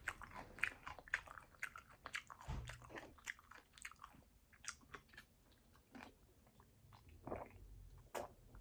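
A person chewing a mouthful of poke close to the microphone: quiet, irregular wet clicks and smacks of the mouth and food.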